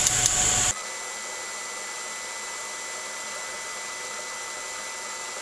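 TIG welding arc on thin-wall stainless steel pipe: a steady hiss. Under a second in it drops abruptly to a quieter, even hiss with a few faint high whines.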